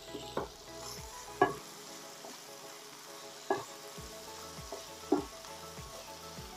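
Chicken and carrot strips sizzling in a nonstick frying pan as a wooden spoon stirs them, with four sharp knocks of the spoon against the pan, the loudest about a second and a half in.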